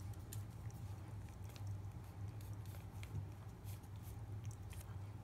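A cat licking wet paste treat from a squeeze tube: irregular small wet clicks and smacks of its tongue and mouth. A steady low hum runs underneath.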